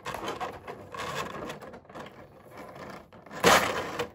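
Plastic toy packaging and tape being handled and pulled apart, an uneven rustling and scraping, with a short, louder rip or crinkle near the end.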